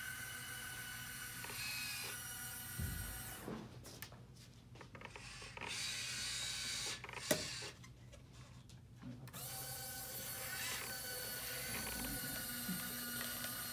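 Small geared electric motors of a tracked hobby robot whirring as its string-and-pulley arm lowers a bucket. The whir stops and restarts twice, with a low thump about three seconds in and a sharp click about seven seconds in.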